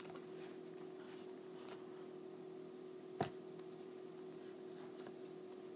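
Faint rustling of a white napkin being waved and handled close to the microphone, over a steady low electrical hum, with one sharp knock about three seconds in.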